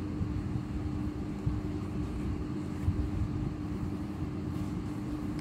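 Steady low room hum with one constant tone, with a couple of soft knocks as a book is handled on a desk.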